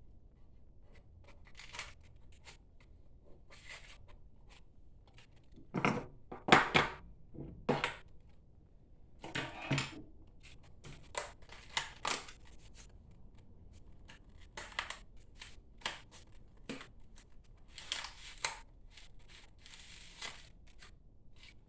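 A series of short rustles, scrapes and knocks from objects being handled, loudest between about six and ten seconds in.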